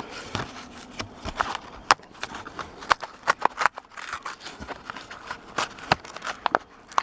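Plastic blister and cardboard packaging of a die-cast toy car being worked open by hand: a string of irregular sharp clicks, crackles and crinkles.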